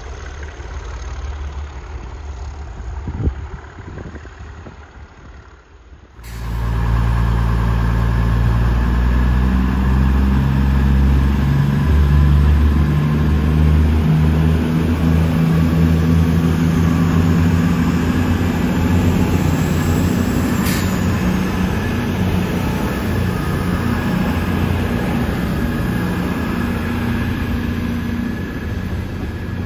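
For about six seconds, a distant diesel locomotive's engine rumbles low: the Class 37 heading the test train. Then, much louder and close by, an Avanti West Coast Class 221 Super Voyager passes. Its underfloor diesel engines run under power, and the engine note climbs in steps as it pulls along the platform.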